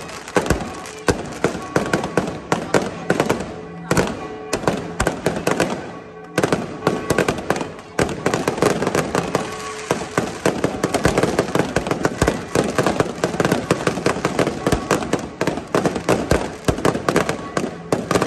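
Aerial fireworks display: a dense, rapid barrage of bangs and crackling bursts, with a brief lull about six seconds in.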